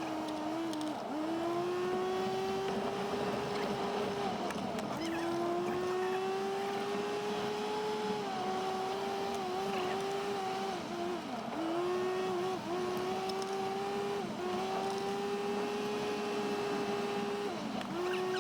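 Car engine running while driving, its pitch climbing slowly and then dropping back abruptly several times.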